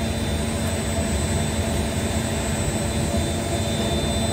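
Washing machine running: a steady, loud rumble and drone with a low, even hum.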